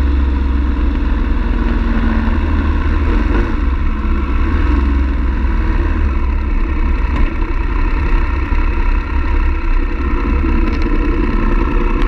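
BMW F 850 GS motorcycle's parallel-twin engine running at a steady road speed while riding, heard from the bike with a heavy low rumble underneath.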